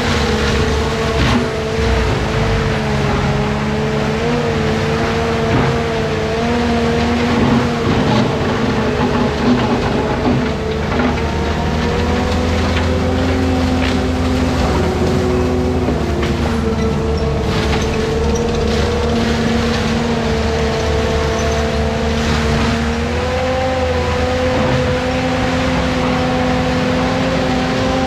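ASV RT-120 Forestry track loader running a Fecon mulching head, its diesel engine and spinning mulcher drum under steady load as it grinds through brush and saplings. A steady pitched tone wavers slightly over the running machine, with scattered sharp cracks as wood is chewed up.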